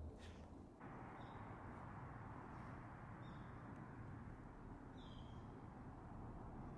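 Female Daurian redstart giving three short, thin, high calls about two seconds apart over a steady background hiss.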